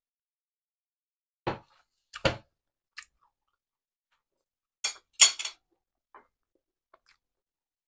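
Chewing a mouthful of crisp salad: a handful of separate, irregular crunches, the loudest a little after five seconds in.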